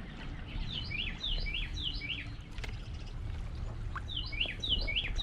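A songbird singing: a quick run of repeated slurred whistled phrases about a second in, and the same song again about three seconds later, over a steady low rumble.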